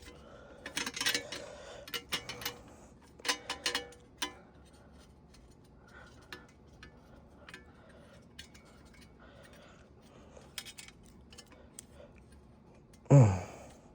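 Scattered light clicks and clinks of small metal parts and tools being handled on an exhaust fan motor, with a short voice sound near the end.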